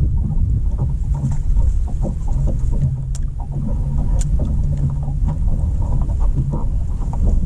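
Wind buffeting the microphone on an open bass boat: a low, steady rumble with a faint hum that comes and goes underneath, and a couple of light clicks.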